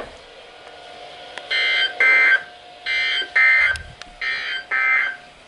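Emergency Alert System digital data tones (SAME) from a weather alert radio: three short bursts of shrill warbling data tones in a row, about a second apart.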